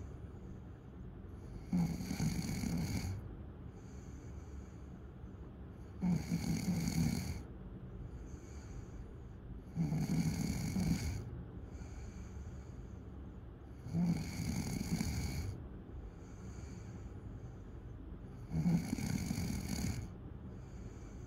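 Snoring in a slow, regular rhythm: five loud snores about four seconds apart, each lasting over a second, with softer breaths in between.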